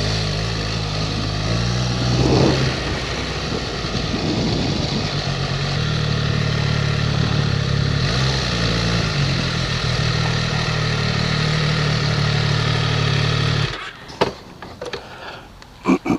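MV Agusta F3 675's three-cylinder motorcycle engine running at low speed with small throttle changes, then switched off abruptly about 14 seconds in. A few sharp knocks and clicks follow.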